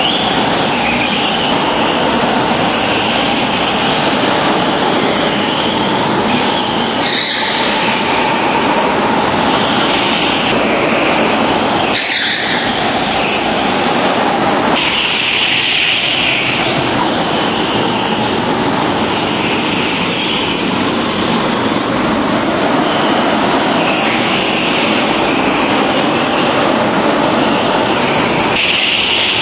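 Several go-kart engines racing, a dense continuous engine noise that shifts abruptly a few times as karts pass.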